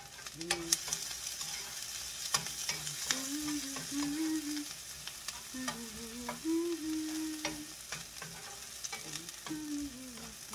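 Chopped onion and garlic sizzling in hot oil in a frying pan, stirred with a metal spoon that clicks and scrapes against the pan now and then.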